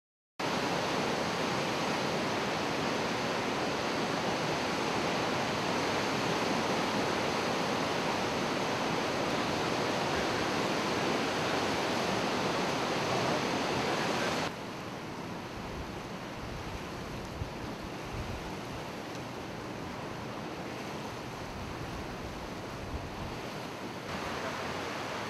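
Loud, steady rush of turbulent floodwater churning through Barkley Dam's spillway and tailwater at high flood release. Partway through it drops to a quieter, more distant rush with some low rumbling of wind on the microphone.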